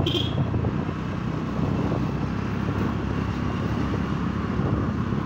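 Motorcycle engine running steadily while riding slowly, with wind and road noise on the microphone. A short high tone sounds right at the start.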